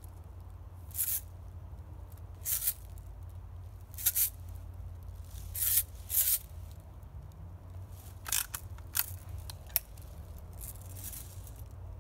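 Red Ryder lever-action spring BB gun being cocked between shots: a string of short scraping strokes from the lever and spring, then a quick cluster of sharper clicks about eight to ten seconds in.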